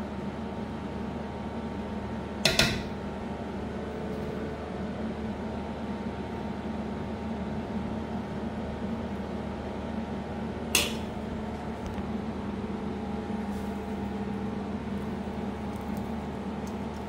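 Metal cooking utensil clanking against a pot twice, a quick double knock about two and a half seconds in and a lighter knock about eleven seconds in, over a steady kitchen hum.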